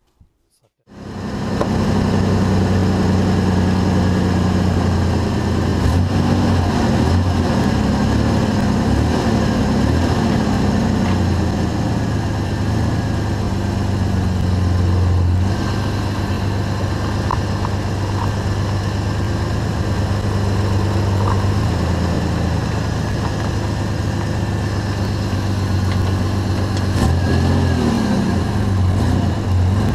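Chevrolet S-10 pickup's engine running at a steady idle, heard from under the truck, its pitch wavering briefly near the end.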